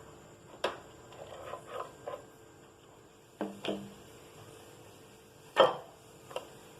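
A knife cutting a thin sheet of rolled samosa dough on a board, giving a few short knocks and taps of the blade, the loudest about five and a half seconds in.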